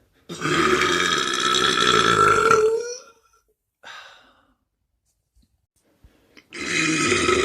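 A person burping loudly: one long burp lasting about two and a half seconds, its pitch rising toward the end, then a brief faint sound, and a second long burp starting near the end.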